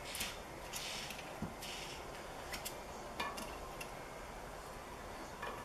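Scraper working old gasket material off the aluminium crankcase mating surface of a Yamaha YZ125 two-stroke engine: a few short, hissy scraping strokes in the first two seconds, then scattered light metallic ticks and clicks.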